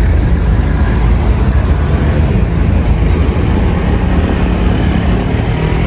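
Steady low rumble of road traffic on a city street.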